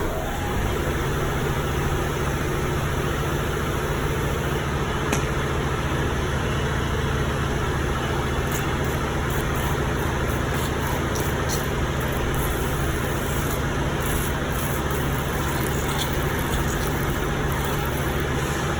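Industrial tumble dryer running: a steady mechanical hum with a low drone, and a few faint light ticks here and there.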